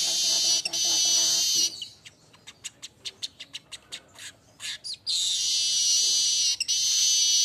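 Manyar weaver bird singing: a long, high, buzzing phrase, then a run of quick dry clicking notes, then a second long buzzing phrase starting about five seconds in.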